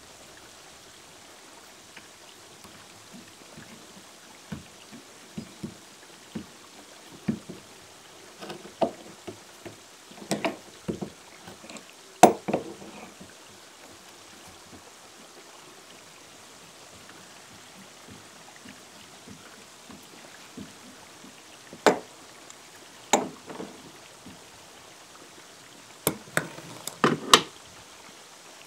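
Metal door hinge hardware knocking and clicking against a wooden door post while a hinge pin is screwed in and a strap hinge is fitted. The knocks are irregular: a few light ones, a sharp loud one about halfway through, and a quick cluster of clicks near the end.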